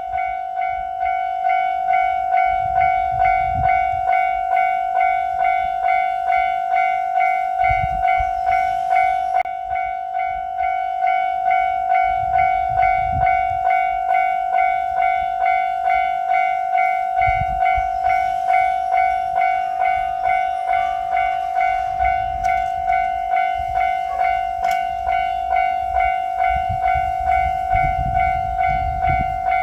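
Japanese level-crossing warning bell ringing steadily, a clanging tone struck about twice a second, with low rumbles coming and going underneath.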